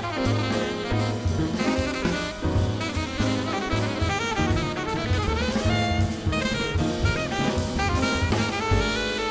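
Jazz band playing live: a horn melody over drum kit with cymbals and a bass line.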